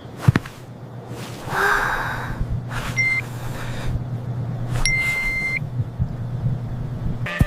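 Animated sound effects over a steady low hum: a swish about one and a half seconds in, then two short high electronic beeps, the second one longer.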